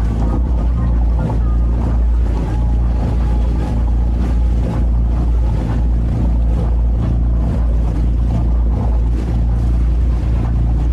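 Motor cruiser's engine droning steadily as the boat runs under way, with wind on the microphone.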